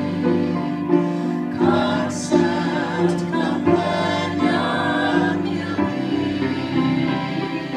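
A mixed vocal quartet of two men and two women singing together in harmony, with piano accompaniment.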